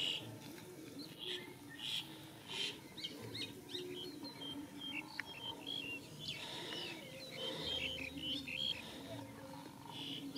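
Small birds chirping in quick, short, high calls over a faint steady background hum.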